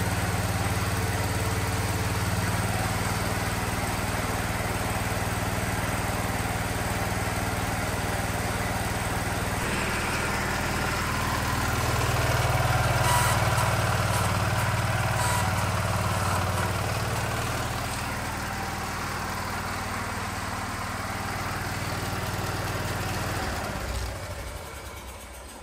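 Wheel Horse 314H garden tractor's Kohler engine running steadily. About ten seconds in its note changes and it runs louder for a few seconds; near the end it is shut off and winds down.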